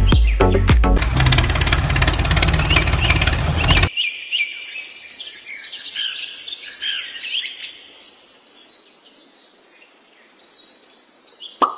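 Background music with a beat that cuts off abruptly about four seconds in. It gives way to small birds chirping, which thin out and fade. A sharp tap comes right at the end, as a miniature brick is set down.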